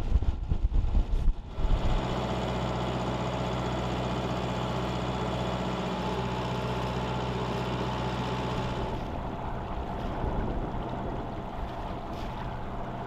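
A sailboat's inboard diesel engine running steadily while motoring, a constant low hum. Loud, irregular buffeting covers the first second or two.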